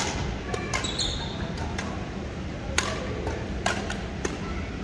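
Badminton rackets striking a shuttlecock during a doubles rally: a series of sharp hits at irregular intervals.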